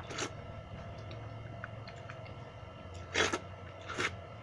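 Eating watery curd rice (dahi pakhala) by hand: three short wet mouth sounds, one near the start, a louder one about three seconds in and another just after.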